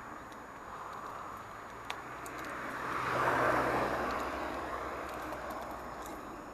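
A small van drives past on the road alongside, its sound swelling to a peak about three seconds in and then slowly fading, over the steady rolling hiss of a bicycle ridden on pavement. A single sharp tick comes just before the van's sound rises.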